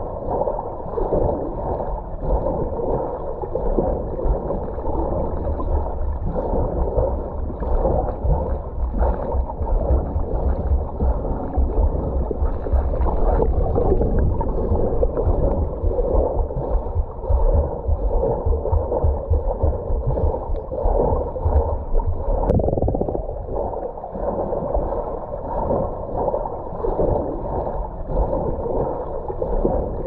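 Butterfly (dolphin) kick churning the pool water, heard with the camera underwater: continuous muffled bubbling and splashing with a low rumble.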